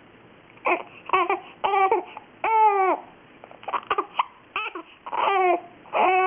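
Baby with hiccups fussing: a string of short, whiny cries, each breaking off after less than half a second.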